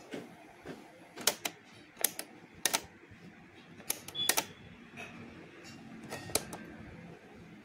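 Sharp plastic and metal clicks from a Philips RM 170 mono cassette player's tape mechanism being handled by hand, about a dozen clicks, several in quick pairs.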